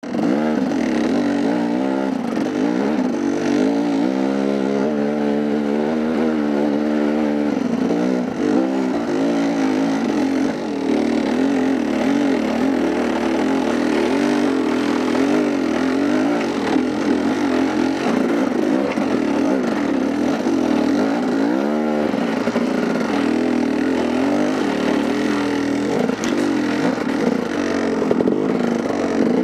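Dirt bike engine running hard on a trail ride, its pitch rising and falling over and over as the throttle is opened and closed, with one sharp rev about twenty-two seconds in.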